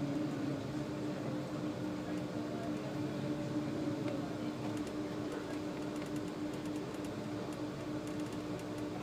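SOR NB 12 City bus engine running steadily as the bus drives slowly, heard from inside the driver's cab: a constant hum over road and drivetrain noise.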